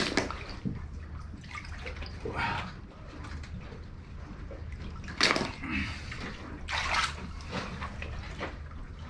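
Water sloshing and splashing as a person wades chest-deep and works under a raft, with louder splashes about five and seven seconds in.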